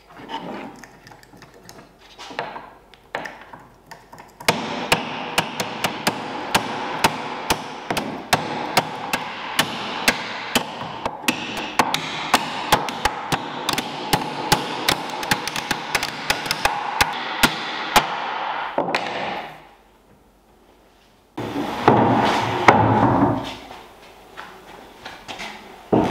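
A hammer tapping wooden dowels into the drilled holes of an oak table frame: many quick, sharp knocks over a steady background hum. Near the end comes a louder, heavier knock and scrape as a large oak slab is handled.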